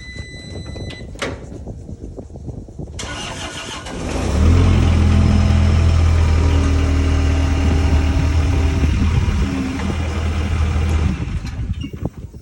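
A short electronic beep, then the Case 40XT skid steer loader's diesel engine cranks about three seconds in, catches a second later and runs steadily. It shuts off about eleven seconds in.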